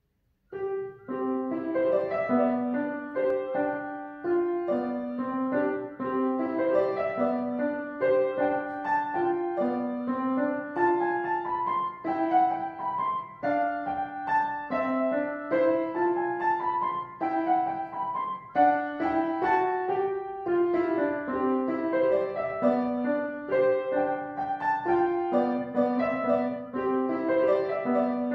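Upright acoustic piano played solo: a steady stream of notes, mostly in the middle of the keyboard, starting about half a second in.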